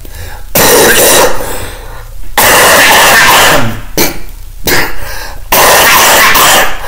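A man coughing hard into his fist in three loud, rasping bouts, each about a second long.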